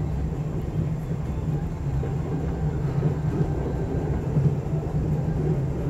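Steady low rumble of a locomotive-hauled sleeper car running at speed, wheels on rail, heard from inside the compartment.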